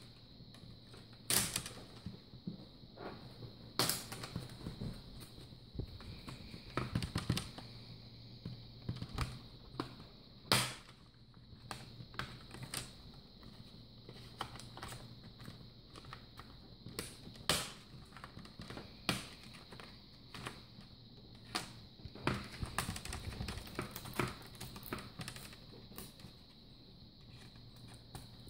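Plastic screen bezel of a Dell Latitude E7440 laptop being pried off with a plastic card: irregular sharp clicks and snaps as its retaining tabs pop loose one by one, a few much louder than the rest.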